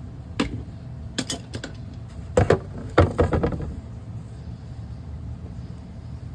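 Several sharp knocks and clattering clicks from plumbing pipe and fittings being handled, with the loudest clatter about two and a half to three and a half seconds in, over a steady low hum.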